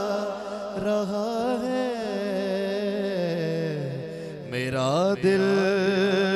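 A man singing a naat solo into a microphone, drawing out long wavering melismatic notes without clear words. The voice sinks lower and quieter about four seconds in, then climbs back up.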